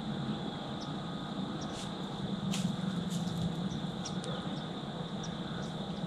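Steady low background hiss with scattered light ticks and snaps, one sharper snap about two and a half seconds in.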